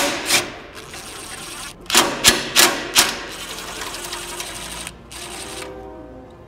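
Cordless impact driver with a socket on an extension, running out the 10 mm bolts of a radiator stay: bursts of rapid hammering rattle, with a few sharp clacks about two to three seconds in.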